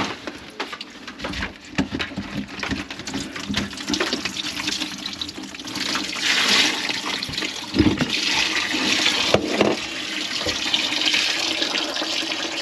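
Clattering knocks, then water rushing in a kitchen sink from about six seconds in, with a couple of sharp knocks in the middle of it.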